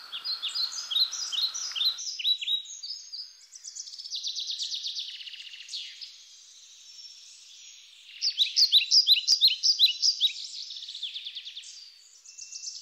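Songbirds chirping and trilling, several short calls and rapid trills overlapping, busiest about eight seconds in.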